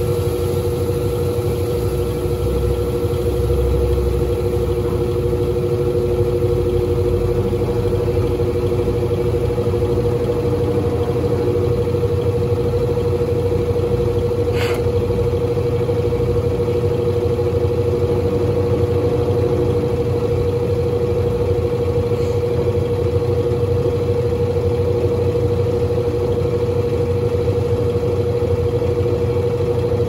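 Brastemp Baby Mondial 4 kg top-loading washing machine running with a steady motor hum, one constant tone with a low drone beneath it. A single short click about fifteen seconds in.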